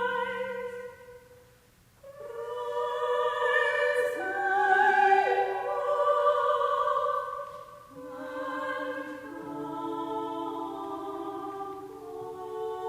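Choir singing a slow hymn-tune arrangement in long held notes. One phrase ends about a second in, and after a short pause the voices come back in.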